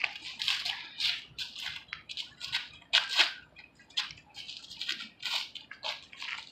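Footwork and gloves of two boxers light sparring on asphalt: irregular quick scuffs and slaps, a couple a second, the loudest about three seconds in.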